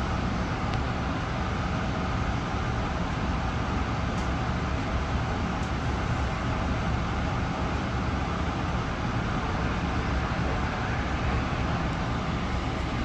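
Steady running noise of an LIRR M3 electric multiple-unit train heard from inside the car: an even rumble of wheels on rail with a hiss over it.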